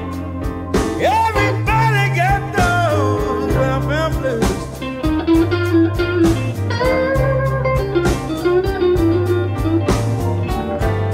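Slow electric blues band playing: a lead guitar plays bent, wavering notes over bass and drums.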